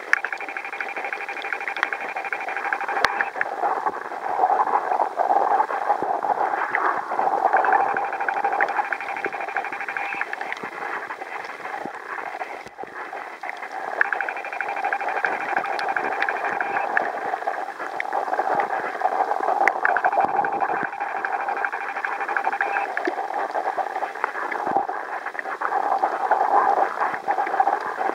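Muffled underwater noise picked up by a camera submerged in the sea: an uneven, narrow-band hiss and rush, with a few scattered faint clicks.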